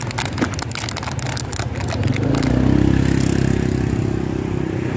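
A vehicle engine passing close by on the street, its hum building about two seconds in and staying loud to the end. In the first two seconds, sharp clicks and crinkling of plastic as a cup lid and bag are handled.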